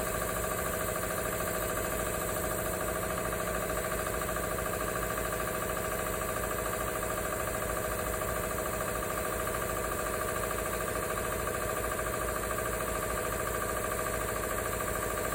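Industrial air compressor fitted with a Whisper Quiet silencing kit, running steadily: an even drone with several held tones that does not change.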